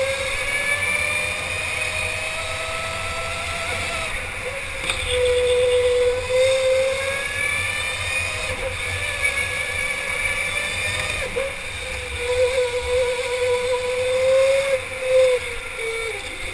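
Electric go-kart's motor whining, its pitch climbing as the kart accelerates and dropping back as it slows for the corners, several times over.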